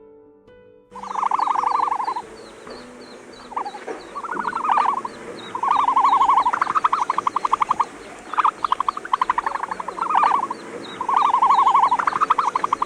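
An animal calling over and over: about six loud bouts of buzzy, rapidly pulsed trills, starting about a second in, over a steady chorus of fast, high-pitched chirps.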